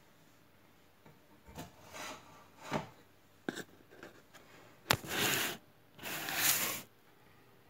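Scattered light knocks and clicks with rubbing, scraping noises from handling, including two longer rubs about five and six seconds in.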